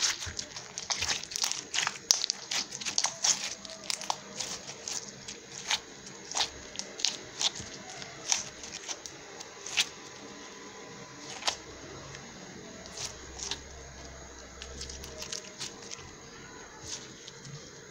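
Crunchy slime being squeezed and kneaded by hand, giving off irregular crackling pops and clicks, thick and fast in the first few seconds, then more scattered.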